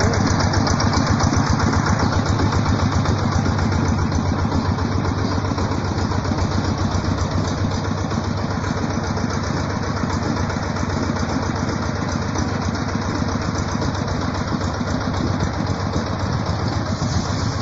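Engine of a long-arm paddlewheel aerator running steadily, with a rapid, even pulse as it drives the line of paddlewheels.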